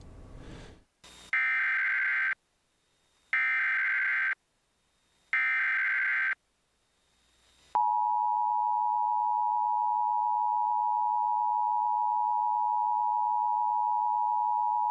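Emergency Alert System activation for a tornado warning: three one-second bursts of the SAME header's digital data screech, about two seconds apart. Then, about eight seconds in, the steady two-tone attention signal (853 and 960 Hz) starts and holds.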